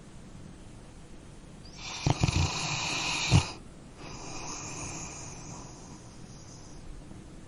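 A sleeping dog snoring: one loud, rattling snore about two seconds in that ends in a sharp catch, followed by a quieter, longer breath.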